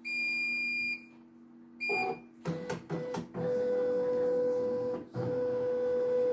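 CNY E900 embroidery machine powering back on: a long beep and then a short beep, followed by clicking and the embroidery unit's stepper motors whining steadily in two runs, with a short break about five seconds in, as the hoop carriage drives back to its home position. This is the machine recalibrating after the hoop hit the end of its travel.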